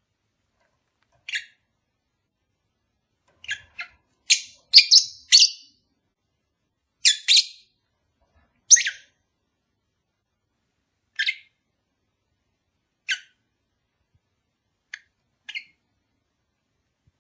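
Lovebird calling in short, sharp, high chirps, one at a time every second or two, with a quick run of several calls about four to five seconds in.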